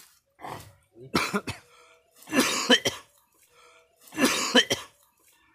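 A man coughing and retching hard in three harsh bouts, the last two the longest and loudest, gagging on the raw wild leaves he has been eating.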